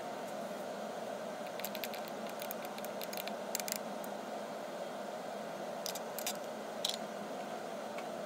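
Steady hiss of room noise, with two short runs of small, sharp clicks, the first about two seconds in and the second about six seconds in.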